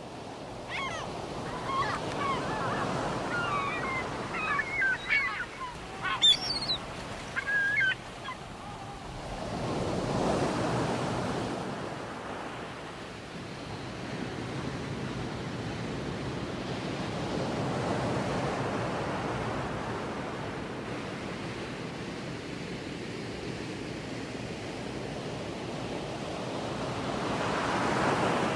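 Sea surf: waves washing in slow swells, cresting about every eight to ten seconds. A flurry of short bird calls sounds over it during roughly the first eight seconds.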